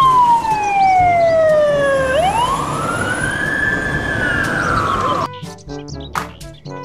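Fire engine siren wailing: its pitch falls slowly, swings back up, then slowly sinks again. About five seconds in it cuts off and bright music takes over.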